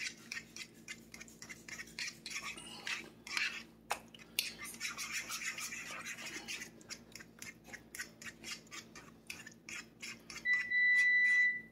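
Utensil scraping and stirring thick cream cheese and pesto in a bowl, a quick run of short rubbing strokes. Near the end, an oven beeps once, a steady high tone about a second long, signalling that it has finished preheating.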